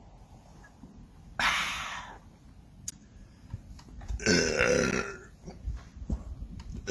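A man's loud, low burp about four seconds in, lasting about a second, brought up by gulps of carbonated sparkling water. About a second and a half in, a short breathy rush of noise comes before it.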